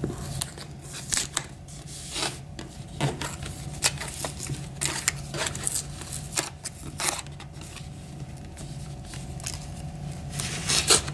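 Fingernails picking at and peeling clear adhesive tape seals off a cardboard watch box: irregular small scratches, crackles and rustles, with a louder cluster near the end.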